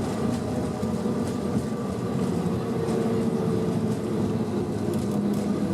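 Airbus A320-200 airliner during landing, heard from inside the cabin: a steady hum of engines and rushing air with faint even tones, with no bumps or sudden changes.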